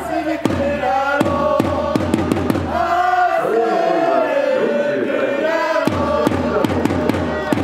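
Football supporters chanting in unison over a bass drum beaten about two to three times a second. The drum pauses for a couple of seconds midway, then resumes.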